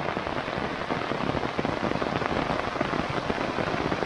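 Heavy rain falling, a steady, dense crackle of drops striking surfaces.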